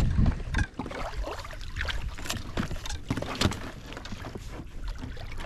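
Water lapping and slapping against the hull of a plastic sit-on-top fishing kayak, heard as short, irregular splashes and knocks, with a low rumble in the first half second.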